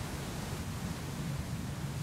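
A steady, even hiss of noise with a low rumble beneath it, holding level with no distinct events.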